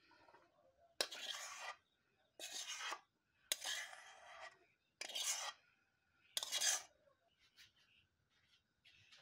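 Cooked rice being scraped out of a frying pan onto a steel plate: about five short rasping scrapes roughly a second apart, then a few faint clicks near the end.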